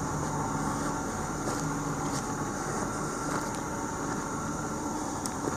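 Log loader's diesel engine running steadily with an even low hum, heard from inside the operator's cab.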